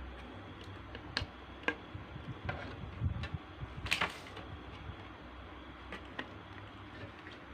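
Scattered light clicks and knocks of things being handled, with a brief rustling scrape about four seconds in, over a faint steady low hum.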